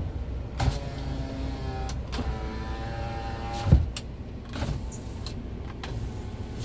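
Power window motors of a 2008 Daihatsu Terios whining as the door glass runs twice, the second run ending with a sharp knock as the glass reaches its stop, followed by a few clicks; the windows are working normally.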